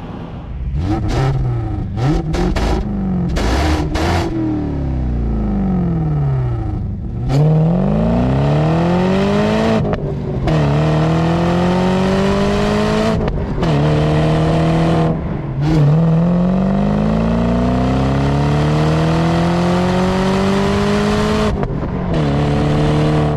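A BMW 545i's 4.4-litre V8, a manual-gearbox car, accelerating hard. The revs swing up and down in the first few seconds, then the engine pulls up through the gears, its note climbing in each gear and dropping sharply at each of several gear changes.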